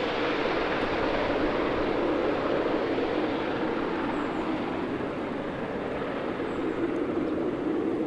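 Airplane engine noise: a steady rush with a low hum, holding level throughout.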